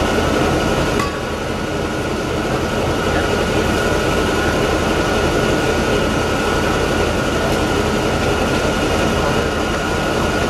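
Narrow-gauge passenger train running, heard from inside a coach: a steady running noise with a constant high-pitched whine.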